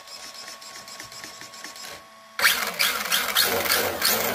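Hobao EPX RC semi truck's 3800 kV brushless motor and gear drive, spinning the raised wheels. It ticks over faintly at first, then is throttled up hard about two and a half seconds in into a loud whirring, and begins to wind down near the end.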